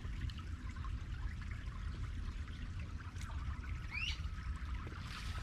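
Shallow creek water trickling steadily, with a short rising chirp about four seconds in.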